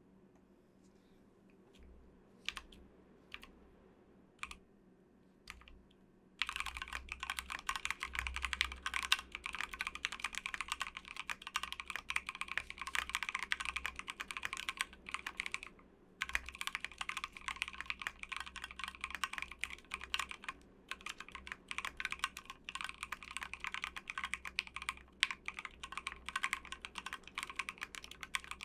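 Typing on a KBDfans Tofu60 mechanical keyboard fitted with Gateron North Pole v1 switches: a few single keystrokes at first, then fast continuous typing from about six seconds in, with a short pause near the middle.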